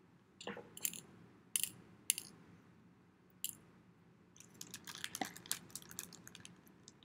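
Plastic baggie crinkling as hands handle it. A few separate crackles, then a denser run of small crackles from about four and a half seconds in.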